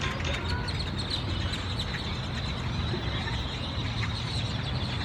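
A flock of birds calling together, a dense, steady chatter of many short overlapping chirps over a low steady rumble.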